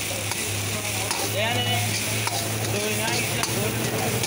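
Steel ladle stirring and tossing fried rice in a hot wok over steady sizzling, with a few sharp clinks of metal on metal.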